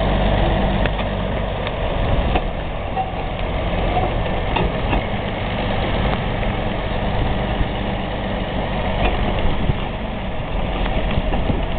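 Wheel loader's diesel engine running steadily while it pushes a wooden narrow-gauge boxcar along the track, with scattered clicks and knocks throughout.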